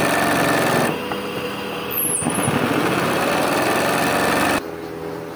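A small motor running steadily with a fast rattling pulse; the sound changes abruptly and gets quieter about a second in and again near the end.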